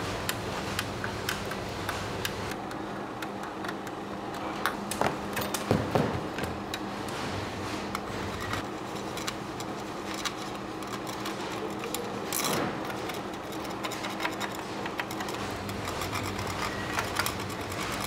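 Assembly-line workshop noise from amplifier manufacturing: a steady machine hum under many scattered clicks and light knocks of tools and parts, with a louder clatter about six seconds in and another knock about twelve seconds in.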